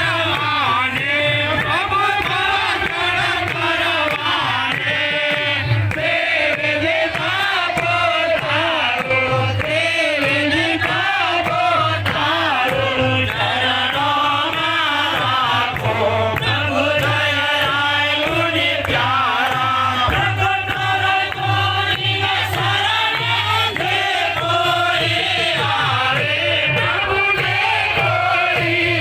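Aarti hymn sung by many voices together in a chanting style, over a steady rhythmic beat.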